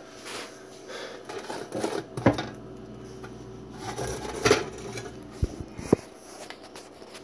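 Handling noise: several sharp knocks and clicks with some rustling, the loudest about two, four and a half, five and a half and six seconds in, as the skewer-pierced can and the wooden cabinet are handled.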